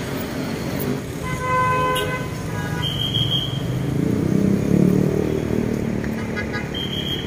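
Street traffic with a car horn honking about a second in and briefly again soon after. The traffic noise swells around four to five seconds in as a vehicle passes, and a short high steady beep sounds twice.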